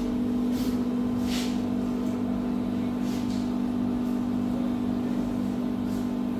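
Steady machine hum made of several fixed low tones, with a few short hissing scrapes as a bare LCD glass panel is slid and laid onto the glass bed of a laser repair machine.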